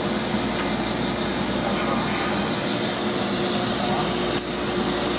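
Light metallic clinks and taps of a lock nut and tools being handled on a dryer drum's shaft, with one sharper clink about four seconds in, over a steady machine hum.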